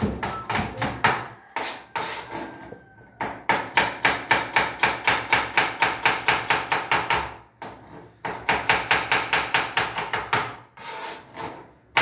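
Chef's knife chopping onion on a plastic cutting board: a few uneven cuts at first, then quick, even strokes about five a second in two runs, with a short pause after about seven seconds and another near the end.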